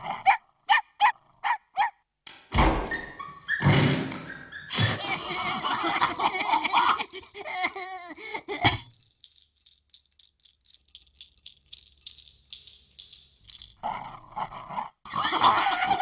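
Cartoon dogs yelping in a run of short, quick yaps, then several sharp thumps and a noisy scuffle. A quiet lull follows, then more yapping and barking near the end.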